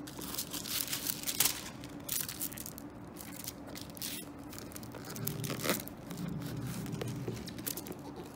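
Paper wrapping crinkling and rustling in short bursts as it is slid off a watch box, with light handling of the box. The crinkling is densest in the first few seconds.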